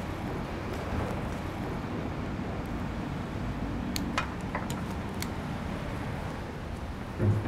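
Street ambience with a steady hum of traffic, and a few sharp clicks and clinks about four to five seconds in as the glass shop door's metal handle is worked. A low thump comes near the end.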